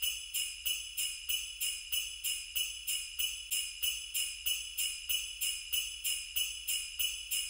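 Sleigh bells shaken in a steady rhythm, about three shakes a second, with a bright jingling ring between shakes.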